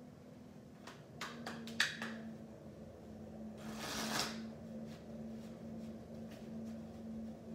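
Playing cards being handled by hand: a few sharp taps and clicks as the card stacks are picked up and set down, then a single riffle shuffle about three and a half seconds in, a short rushing flutter of cards, followed by faint clicks as the stack is squared.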